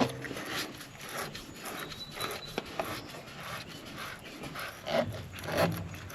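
Irregular rubbing and scraping of parts being handled, with a few light knocks; no engine running.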